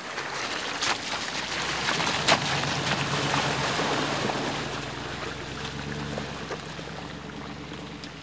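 Bentley Bentayga EWB creeping through a waterlogged, muddy track: a steady low engine hum under the slosh and splash of tyres through puddles and mud, with a couple of sharp knocks, the loudest just after two seconds in. The sound eases off slightly near the end.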